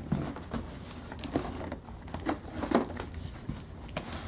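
Packing material being handled as a PC case comes out of its carton: irregular crinkling and rustling with a few soft knocks.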